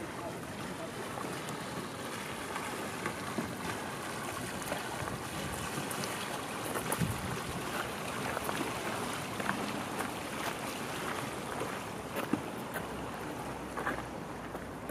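Steady rush of moving river water, with the light splashes of a kayak paddle dipping in with each stroke.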